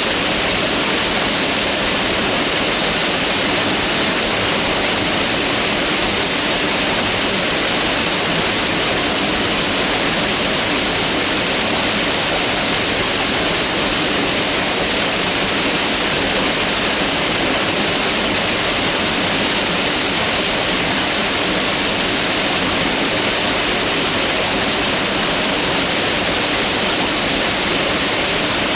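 Mountain river water rushing, a steady, unbroken noise.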